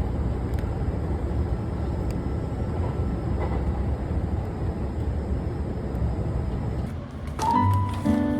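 Steady low rumbling noise of a vehicle travelling. Music comes in about seven seconds in.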